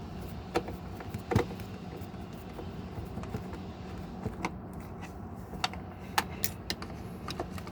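Scattered small clicks and taps of hand tools against plastic door trim as the trim panel's screws are taken out, over a steady low hum.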